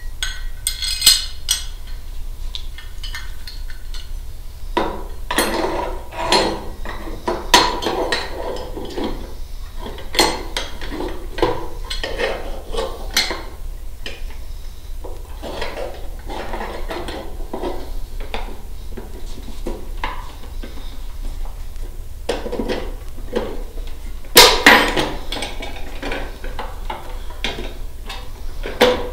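Metal antenna mounting brackets and bolts clinking and clattering as they are handled and fitted onto a sector antenna, with irregular sharp knocks; the loudest knock comes about three quarters of the way through.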